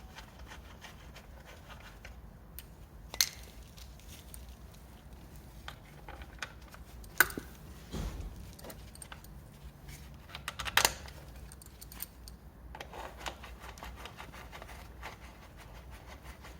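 Workshop handling sounds: a few sharp metallic clicks and clinks, loudest about three, seven and eleven seconds in, among lighter scattered ticks and rustling, as tools and parts are handled during scooter reassembly.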